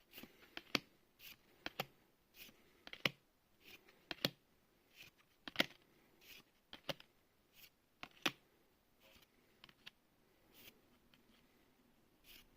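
Magic: The Gathering trading cards being handled and flipped through one at a time, giving an irregular run of soft, sharp clicks and snaps about once or twice a second.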